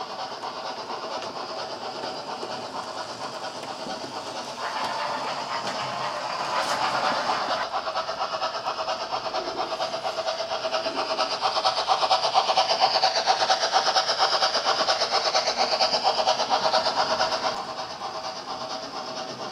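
Model train running on the layout: the wheels of a string of tank wagons clicking and rattling over the track with the whir of a model locomotive's motor. It grows louder about five seconds in and falls back near the end.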